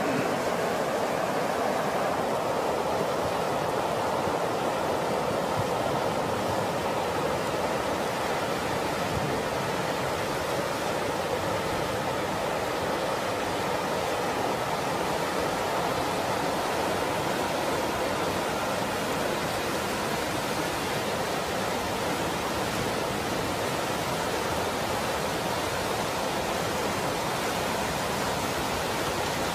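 Muddy flash-flood water rushing and churning over the ground in a steady, dense rush of noise.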